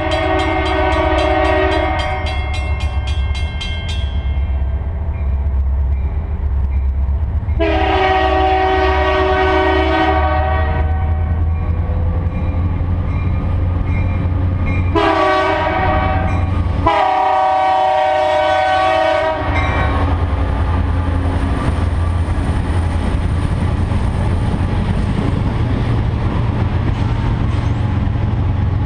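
Diesel freight locomotive's air horn sounding the grade-crossing signal, long, long, short, long, over a low engine rumble as the train approaches, with a crossing bell ringing during the first few seconds. From about twenty seconds in, the locomotives and wheels roll through the crossing with a steady rumble and rail noise.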